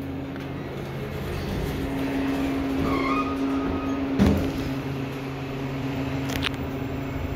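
thyssenkrupp elevator doors sliding closed over a steady machine hum, shutting with a knock about four seconds in; a short click follows near the end as the car sets off downward.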